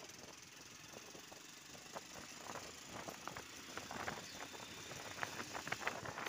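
A motorbike being ridden over a rough, patched street: a steady hiss of motion noise with irregular rattling clicks and knocks, more and louder toward the end.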